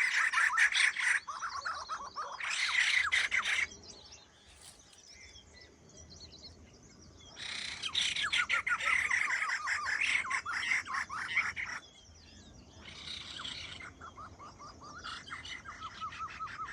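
Birds chirping and chattering in dense, rapid bursts that come and go: a long stretch around the middle and shorter ones near the start and end, with quieter gaps between.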